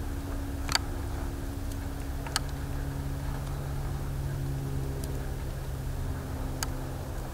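Steady low hum of a distant engine, with three sharp ticks: about a second in, two and a half seconds in, and near the end.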